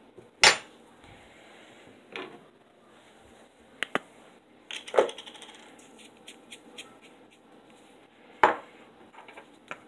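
A fork knocking and clinking against a cup: about five sharp knocks, the loudest about half a second in, with runs of lighter ticks in the middle and near the end.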